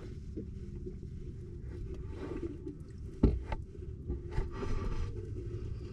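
Water moving in a plastic bucket over a low steady rumble, with scattered knocks and scrapes of handling; the sharpest knock comes about three seconds in.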